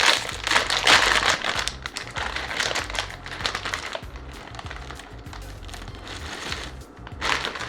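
Plastic snack bag of Pipoca Vovozinha crinkling as it is opened, loudest in the first second and a half and again near the end, over background music with a steady beat.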